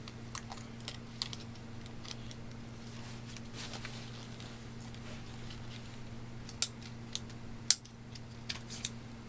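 Scattered light clicks and taps of the camera's small plastic body parts being handled and pressed back together during reassembly, the sharpest click about three-quarters of the way in. A steady low hum runs underneath.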